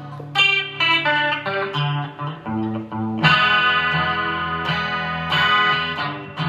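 Guitar music: single picked notes, then a fuller electric guitar sound with distortion from about three seconds in.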